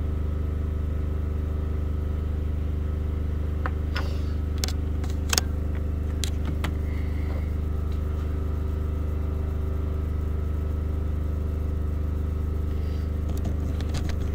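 A steady low machine-like hum, with a few sharp clicks and taps around the middle.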